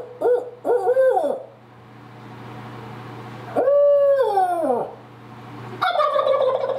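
A man hooting like an owl by mouth through cupped hands, the owl locator call turkey hunters use to make gobblers answer. First a quick run of short hoots, then a long hoot that falls away in pitch, and another call begins near the end.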